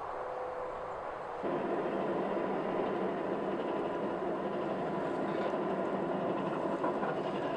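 Forge fire burning: a steady, dense rushing noise that comes in suddenly about a second and a half in, over quieter ambience before it.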